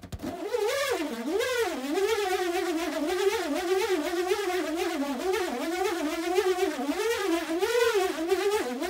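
Balloon with a quarter-inch hex nut inside being swirled, the nut spinning around the inside of the balloon and making a continuous squealing buzz. It starts about half a second in, and its pitch wavers up and down as the swirling speeds and slows.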